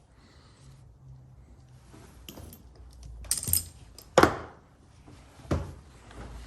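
Handling noise from working the rubber grip off a personal watercraft's handlebar: a few separate knocks and scrapes, the loudest a little past the middle.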